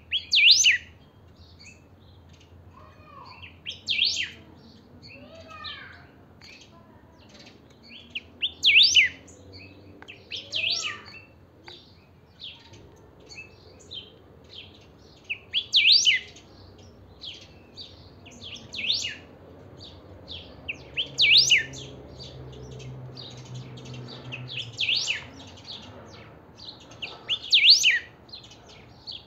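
A caged picahueso, a saltator, singing loud, short whistled phrases every few seconds, with softer chirps between them.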